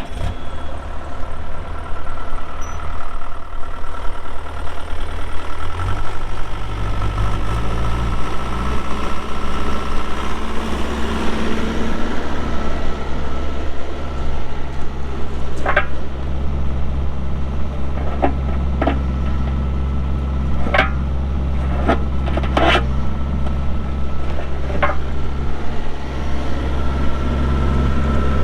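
Bobcat E42 mini excavator's Kubota diesel engine running steadily; its speed steps up about six seconds in and then holds. In the second half a handful of sharp knocks sound over the engine.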